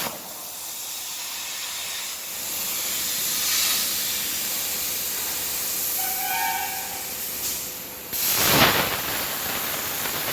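Hypertherm Powermax105 plasma torch on a CNC water-table cutting machine, giving a steady high hiss of arc and air. A brief set of pitched tones comes about six seconds in, and a louder rush of hiss a little past eight seconds.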